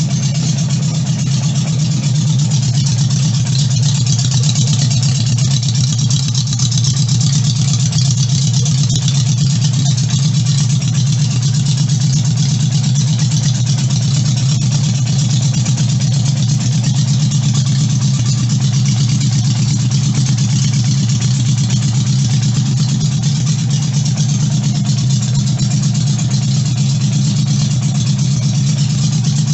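1978 Honda Goldwing's flat-four engine running steadily, with no change in speed, after a carburetor rebuild.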